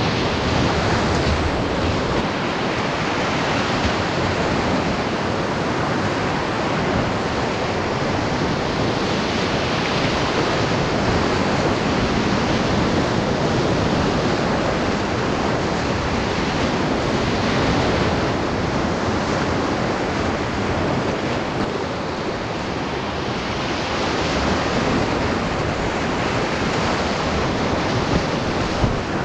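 Loud, steady rush of whitewater rapids on a mountain river, heard from close to the water in an open canoe running through them.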